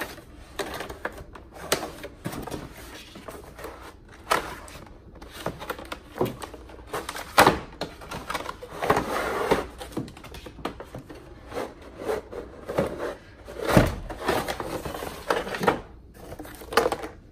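Cardboard packaging being pulled open and handled: paper and card rustling and scraping, with scattered knocks and taps and a heavier thump about fourteen seconds in.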